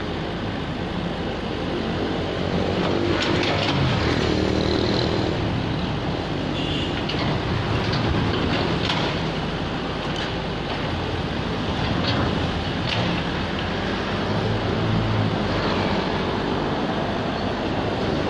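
Komatsu PC78UU excavator's diesel engine running steadily under load while its bucket breaks down a masonry wall, with several knocks and scrapes of concrete and brick rubble coming down.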